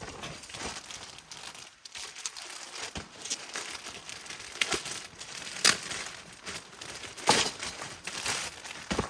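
Packaging being handled: irregular crinkling and rustling, with a few louder crackles midway and again about three-quarters of the way through.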